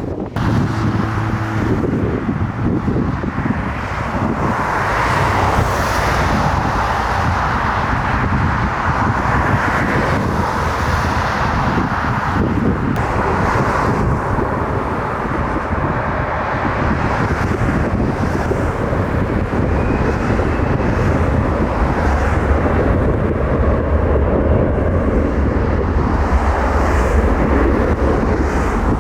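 Airliner jet engines running loud and steady, with wind buffeting the microphone.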